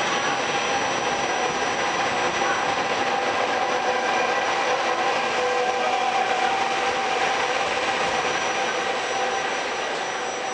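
Trenitalia regional passenger train passing close by, the steady rush and rumble of its wheels on the rails with a few steady tones over it, growing slightly quieter near the end as the electric locomotive at the rear goes by.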